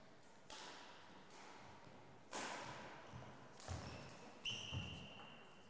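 Badminton rally: a shuttlecock struck by rackets several times, about a second apart, each sharp hit ringing in the hall, with dull footfalls on the wooden court. A thin high squeal starts near the end and holds for about a second.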